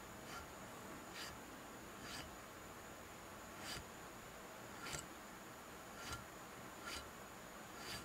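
Small hand file drawn in light, faint strokes across the cast-iron compound rest of a South Bend metal lathe, roughly one stroke a second, smoothing down metal raised around gouges.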